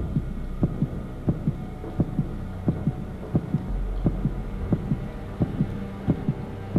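Heartbeat sound effect: a steady lub-dub, paired low thumps about three beats every two seconds, over a low drone.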